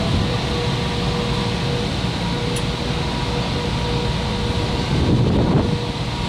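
McLaren MP4-12C's twin-turbo V8 running at a steady idle, with a brief low swell about five seconds in.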